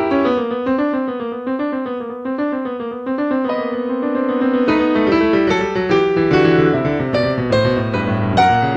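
Piano music: a quick run of repeated notes, then fuller chords over a bass line from about five seconds in.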